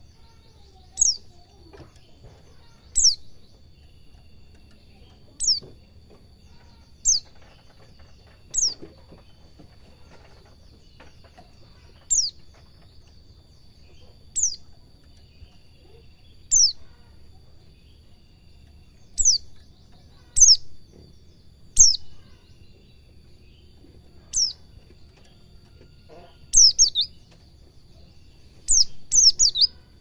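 A caged white-eye (pleci) calling: short, high, downward-slurred chirps repeated every one to three seconds, coming in quick pairs and triples near the end.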